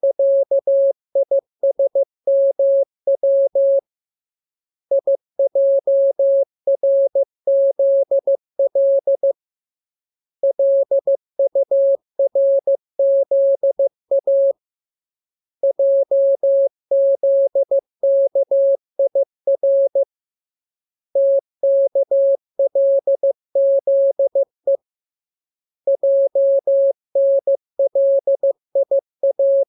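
Morse code sent as a single steady tone keyed on and off in quick dots and dashes. The code comes in runs of about four seconds with a pause of about a second between them: the code groups of a practice radiogram.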